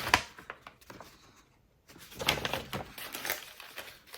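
Packaging of meat snack sticks being handled: a sharp tap at the start, a short silent moment, then irregular rustles and clicks.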